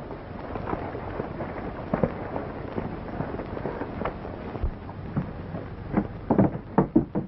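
Old film soundtrack hiss and crackle with a few scattered clicks. About six seconds in comes a run of loud footsteps as two men walk up to a door.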